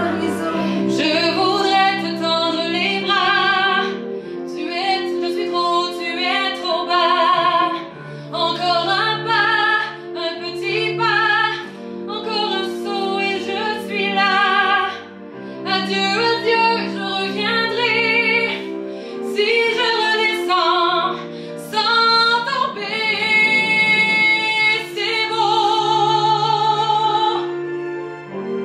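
A woman singing into a microphone in phrases, with a wavering vibrato on the long held notes and short breaths between phrases. Under her voice, low accompaniment notes are held and change now and then.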